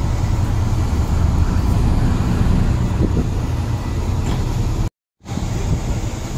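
Steady low rumbling noise that cuts to silence for a moment about five seconds in.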